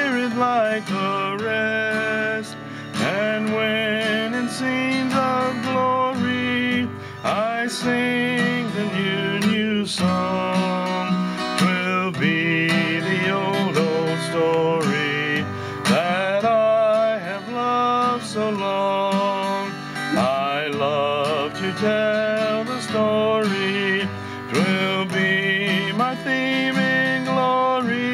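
Instrumental country-gospel music: acoustic guitar accompaniment under a wavering melody line.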